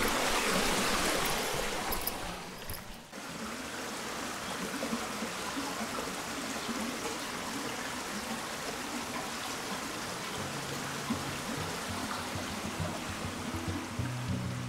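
Steady rushing of stream water, a little louder for the first two seconds and then even, with background music fading in over the last few seconds.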